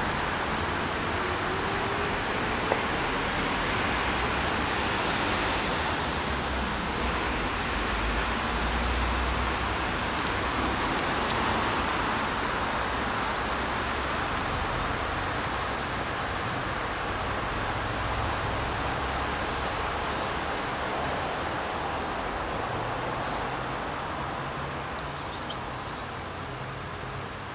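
Steady background traffic noise from surrounding streets, with faint small crunches of a cat chewing dry kibble.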